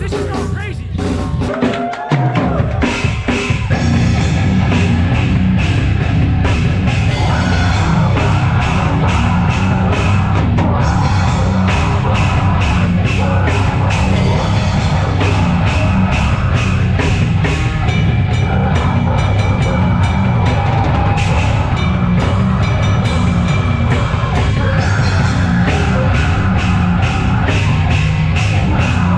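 Loud live heavy rock music with a full drum kit and amplified band, coming in about two seconds in and running steadily after that.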